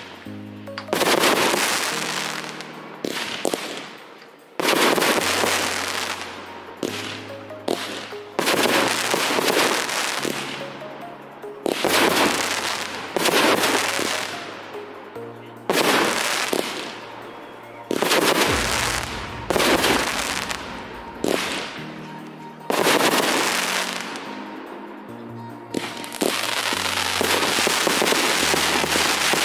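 Fireworks display: shells going off with a sharp bang every one to two seconds, each fading into crackling, over music. Near the end the bangs run together into a steady dense crackle.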